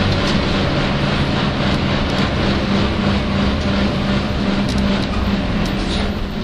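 Nissan Diesel UA city bus under way, heard from inside the cabin: a loud steady diesel running sound with a steady low drone, carrying the abnormal noise that the uploader puts down to a bus near the end of its inspection period. The sound eases slightly near the end.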